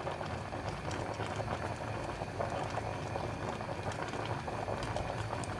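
A pot of meat cooking on the stove gives a steady bubbling crackle with many small ticks.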